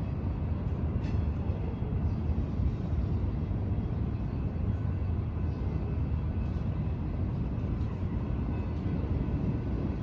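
A train passing at a distance: a steady low rumble.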